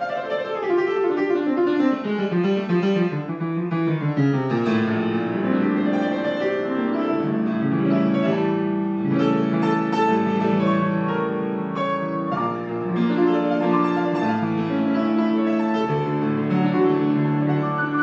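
Grand piano being played: a quick descending run down the keyboard in the first few seconds, then full, sustained chords with a strong bass line.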